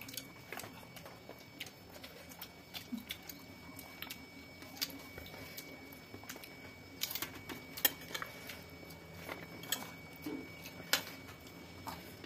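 Close-up eating noises: chewing and wet lip smacks of rice and vegetables eaten by hand, as scattered short clicks and smacks, a few louder ones about seven, eight and eleven seconds in.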